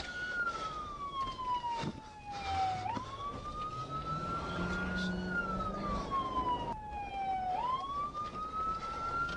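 Emergency vehicle siren in a slow wail, its pitch sliding down over a couple of seconds, then sweeping back up, about once every five seconds.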